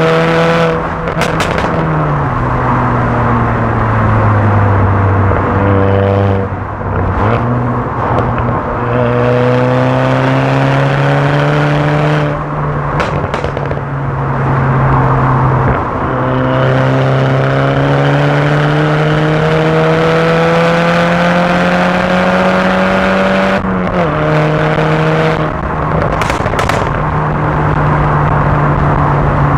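VW Golf Mk6 GTI's turbocharged 2.0-litre four-cylinder engine accelerating through the gears, its pitch climbing and then dropping at each shift, about five times. Short bursts of pops and crackles from the exhaust come at the shifts and lift-offs, produced by its Stage 2 pops-and-crackles remap.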